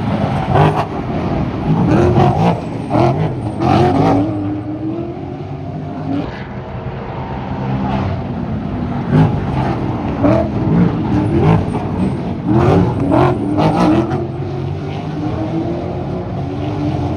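Ford Mustang race cars with V8 engines passing one after another, each engine note rising in pitch as it accelerates.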